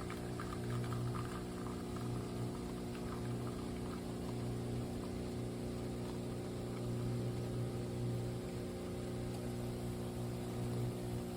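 Compact espresso machine's vibratory pump running steadily, a low electric hum as it pumps water.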